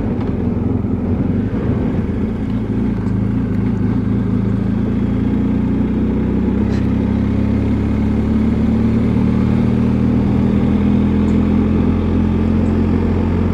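BMW R1250 GS Adventure's boxer-twin engine running steadily at around 35–50 km/h. Its note grows stronger and slightly higher about halfway through as the bike speeds up.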